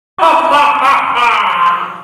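Young men's voices in a loud, drawn-out shout and laughter, starting just after a brief silence.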